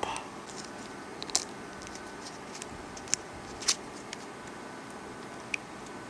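Four short, sharp plastic clicks from a small battery connector being pushed into a circuit board and a plastic case being handled, over a steady low hiss.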